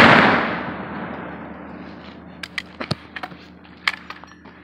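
Zulu 12-gauge breech-loading trade gun firing a black-powder shot shell: a loud boom at the very start that dies away in echo over about two seconds, then a few short sharp clicks.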